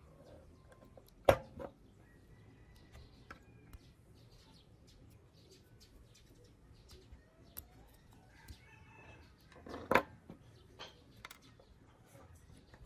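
Pliers clicking and snapping against a small toy motorcycle model as it is taken apart, with a few light ticks and two sharp snaps, one about a second in and a louder one about ten seconds in. Faint bird chirps in the background.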